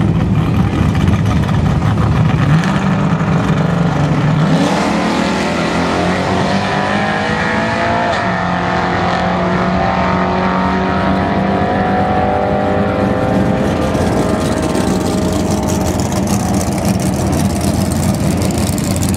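Drag car's engine held at the starting line, then launching a few seconds in and revving up hard down the track, rising in pitch with a gear change about halfway, fading as the car pulls away.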